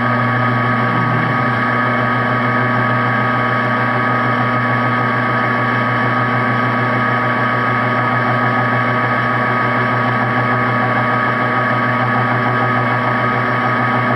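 Metal lathe running at steady speed with its four-jaw chuck spinning: a steady motor and gear-drive hum with a strong low tone and fainter higher tones above it.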